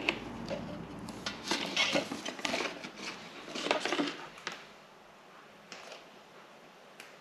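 Light clicks, taps and scrapes of a borescope probe and its cable being handled and drawn out of an engine's spark plug hole, dying away about four and a half seconds in.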